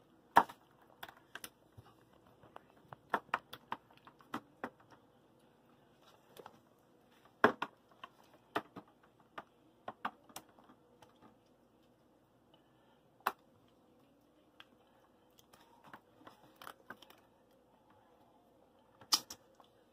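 Irregular clicks and taps of a serving utensil against a disposable aluminium foil pan and bowl as meat sauce is scooped in and spread, with a faint steady hum underneath.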